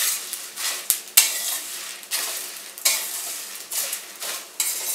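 Metal spoon stirring and scraping whole spices around a stainless steel pan as they roast in a little oil on low heat, with the oil sizzling. The strokes come about once a second, with a sharp clink a little over a second in.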